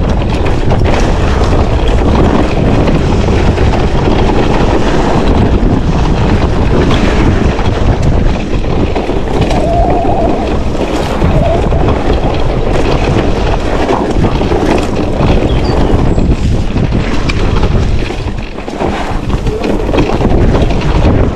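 Wind rushing over the camera microphone during a fast downhill run on a Propain Ekano electric mountain bike, with constant clatter and knocks from the tyres and bike over rough, dry dirt trail. The noise eases briefly near the end.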